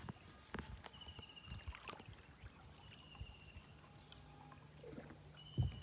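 Water trickling and dripping around a canoe as it moves along the river, with a few knocks against the hull and a loud thump near the end. A bird gives a short trilled call about every two and a half seconds.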